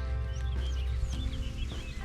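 Background music of held chords that change about once a second, with short high chirps of birds over it.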